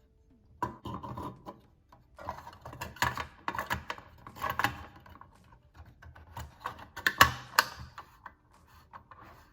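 Ricohflex twin-lens reflex camera being handled with its back open: clusters of small clicks and rattles of the metal parts and film spool in three spells.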